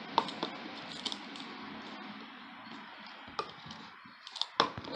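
Handling of a squishy toy and its plastic packaging: soft rustling with scattered light clicks, the clicks coming closer together near the end.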